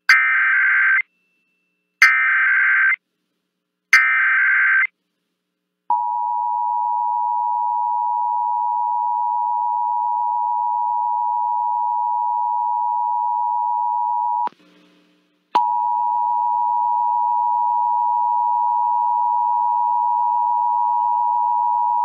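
Emergency Alert System test signal: three one-second bursts of SAME header data about two seconds apart, then the EAS two-tone attention signal held steady. The attention tone cuts out for about a second two-thirds of the way through and resumes with a low hum beneath it.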